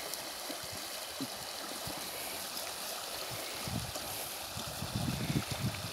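A shallow river running over rocks: a steady rushing of water. A few soft low thumps come near the end.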